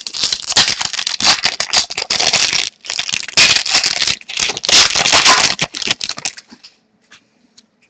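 Foil wrapper of a pack of hockey trading cards being torn open and crinkled by hand, in dense crackling for about six seconds, then stopping.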